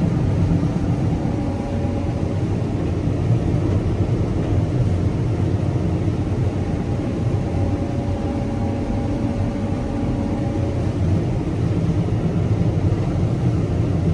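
Combine harvester running steadily under load while harvesting soybeans: a continuous engine and machinery hum with a few faint steady tones over it.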